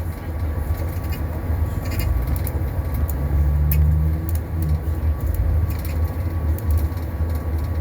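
A 2021 Blue Bird Vision school bus running, with a steady deep rumble and scattered light clicks and rattles.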